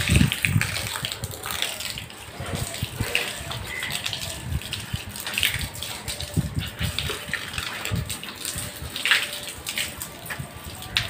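A steady stream of water gushing down and splashing irregularly onto a wet concrete floor.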